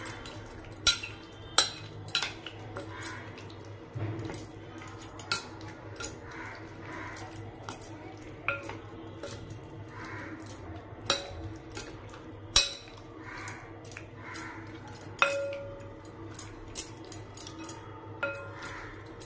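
Metal spoon stirring chicken drumsticks in a spice marinade in a glass bowl, with irregular sharp clinks of the spoon against the glass, some briefly ringing.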